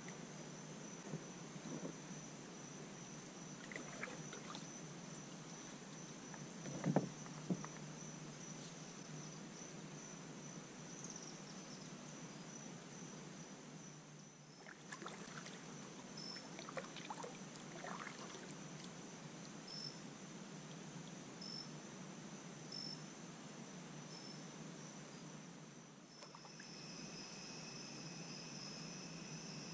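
Kayak paddle strokes with a few soft splashes and drips, over a steady high-pitched trill of insects. A second, lower insect trill starts near the end.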